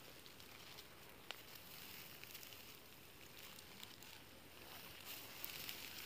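Near silence: faint outdoor background hiss, with a single soft click a little over a second in and light rustling near the end.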